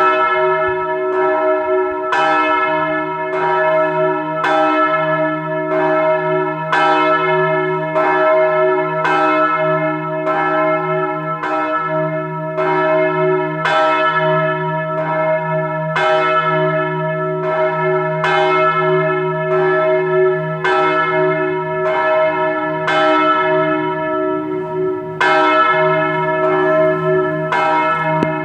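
Large church bell cast in 2001 ringing, its clapper striking about once a second, with a low hum sounding on steadily between strokes.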